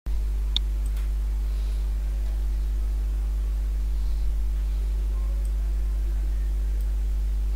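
Steady low electrical hum with a faint hiss, and a faint click about half a second in.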